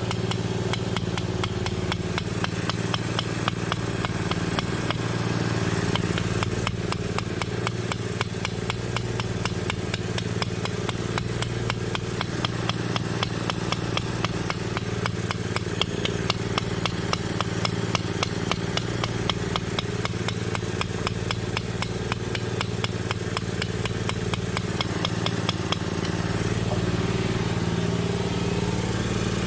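An engine or motor running steadily at a constant speed, with a fast, even ticking over a low, steady hum.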